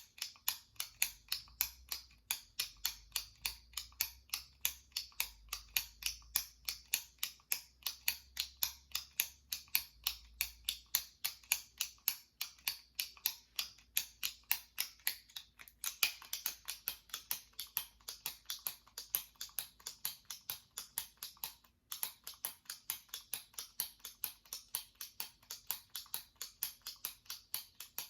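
Jumbo retractable pen clicked repeatedly, its top button pressed and released in a steady fast rhythm of sharp plastic clicks, with one brief break about three-quarters of the way through.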